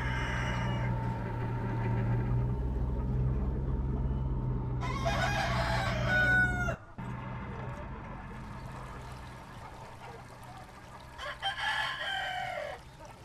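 A cockerel crowing three times: once trailing off at the start, once about five seconds in and once near the end. Under the first part runs the steady low drone of a tractor's engine driving a hedge cutter, which cuts off abruptly about seven seconds in.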